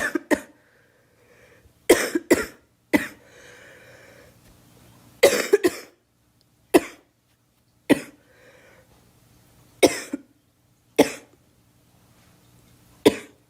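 A girl coughing repeatedly: sharp single coughs and quick runs of two or three, about a second or two apart, with audible breaths drawn in between.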